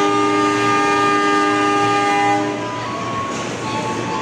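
Train horn sounding one long, steady chord of several tones that cuts off about two and a half seconds in, over the rumble of passenger carriages rolling past.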